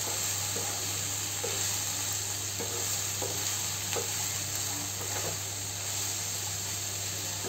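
Okra, sliced onions and green chillies frying in a non-stick kadhai, with a steady sizzle. A wooden spatula stirs the mix, making light scrapes and taps against the pan about once a second.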